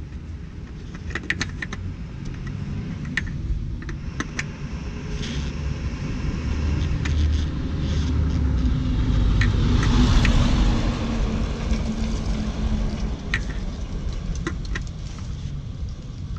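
A vehicle passes by with a low rumble that grows to its loudest about ten seconds in, then fades. Scattered light clicks and scrapes come from gloved hands turning a new oil filter onto its mount.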